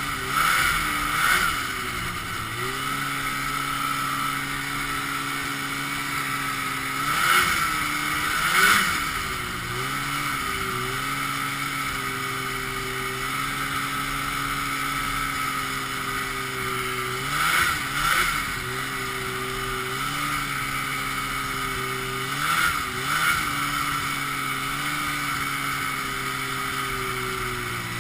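Ski-Doo Blizzard 5500's 503cc two-stroke twin engine running at a steady cruise while riding. About four times the engine note dips and climbs back, with a louder surge each time.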